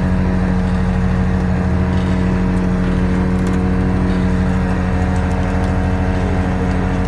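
Fishing boat's engine running steadily, a constant loud drone with a fixed pitch.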